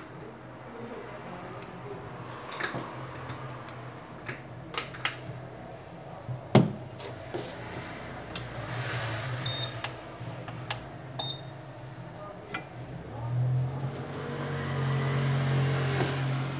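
Scattered clicks and knocks as parts and the phone are handled on a silicone repair mat, one sharp knock about six and a half seconds in, over a low steady hum. From about thirteen seconds a hot air rework gun blows steadily with a hum and rushing hiss, heating the phone's glass back cover to soften its adhesive.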